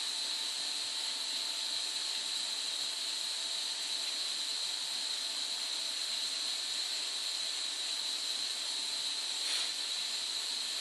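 Steady high hiss at an even level, with one brief faint noise about nine and a half seconds in.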